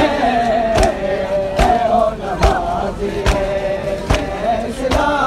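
Men's voices chanting a mourning lament (noha) together, with a heavy beat keeping time a little more than once a second.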